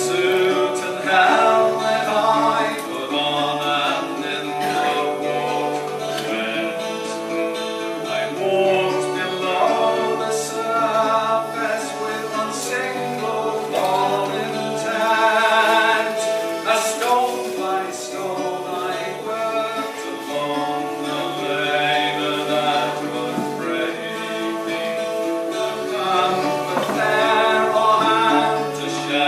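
Live folk band music: long held notes over a low bass note that breaks off and comes back every few seconds.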